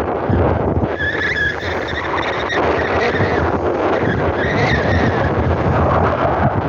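A motorboat running across open water: a steady rush of engine, water and wind noise on the microphone. Two brief high squeals cut through it, about a second in and again about four and a half seconds in.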